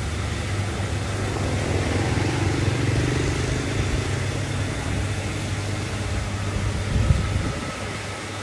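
Steady low hum of a small electric motor turning a whole-pig roasting spit through a belt and pulley wheel, with one brief knock near the end.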